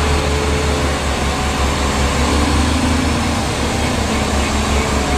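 Liebherr mobile crane truck driving along a road, its engine running steadily with a strong deep low hum.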